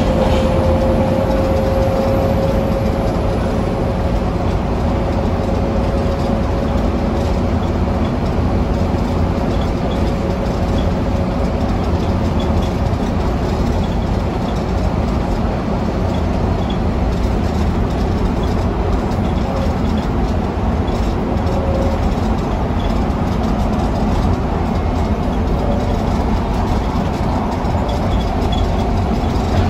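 Scania K320UA articulated bus heard from inside the cabin while under way: a steady engine drone with road and body rumble. A faint whine sounds at the start and fades out over the first several seconds.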